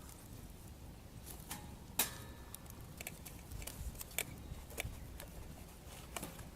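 Wood bonfire crackling, with irregular sharp pops and snaps, the loudest about two seconds in, over a low rumble.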